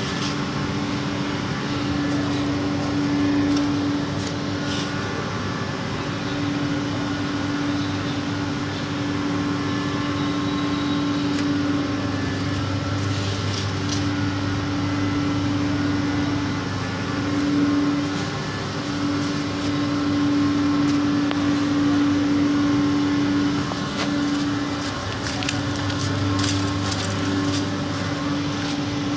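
Steady mechanical hum of machinery in a factory hall, with a higher tone that cuts out and comes back every few seconds over a lower drone, and a few faint clicks.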